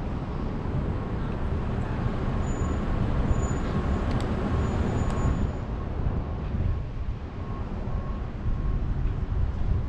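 Road traffic noise with a heavy low rumble of wind on the microphone, heard from a moving bicycle, and a faint on-off beeping in the background.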